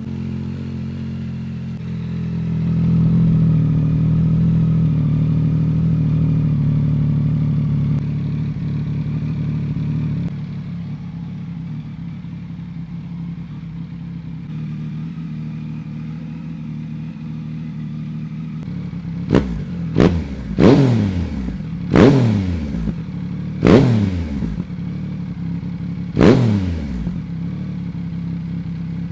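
Yamaha MT-09 inline three-cylinder engine through a Dominator HP8 aftermarket exhaust muffler, idling steadily and dropping to a lower idle about ten seconds in. In the second half it is given six quick throttle blips, each a sharp rise and fall in revs.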